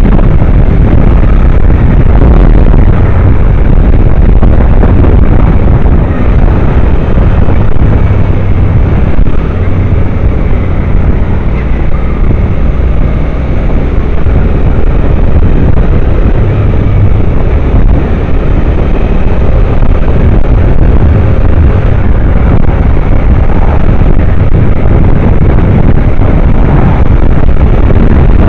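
Heavy wind rumble on the microphone of a camera riding on a moving motorcycle, mixed with engine and road noise. Loud and steady throughout.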